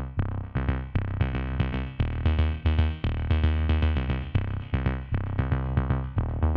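Electronic background music: a synthesizer melody of short repeated notes over a steady bass and drum-machine beat.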